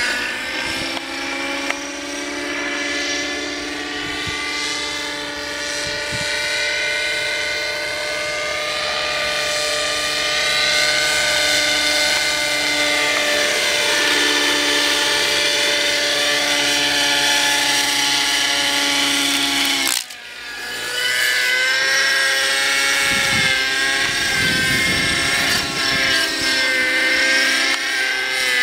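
Nitro-engined radio-controlled helicopter on 600 mm flybarless rotor blades flying aerobatics: the high-revving engine and rotor whine rise and fall in pitch with the manoeuvres. It cuts out briefly about two-thirds of the way through, then comes back.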